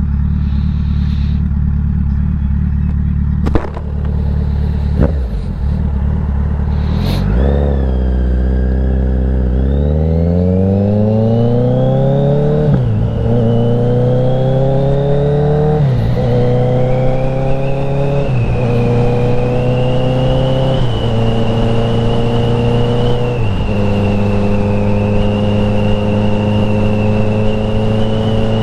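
Kawasaki Z900's inline-four engine on the move, first running steadily with a few sharp clicks, then accelerating through the gears. The pitch climbs and drops back at each upshift, about every two to three seconds, and the later gears pull longer and more gently.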